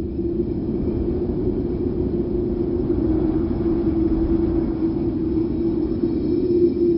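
Wind sound effect: a low, rumbling gust of wind that swells slowly and begins to ease off near the end.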